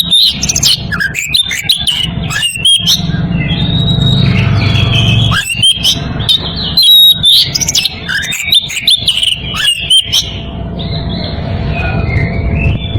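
Oriental magpie-robin in breeding condition singing a fast, varied song of whistles, chirps and sharp clicky notes, calling to challenge a rival, over a low background rumble.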